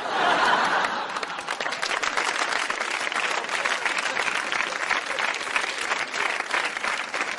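Studio audience applauding, loudest in the first second and then dense, steady clapping.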